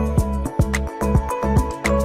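Background music with a steady pulsing beat and plucked notes.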